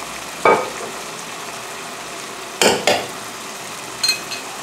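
Food sizzling steadily in hot pans, with a spatula stirring and scraping against the pan a few times: once about half a second in, twice in quick succession near the middle, and once near the end.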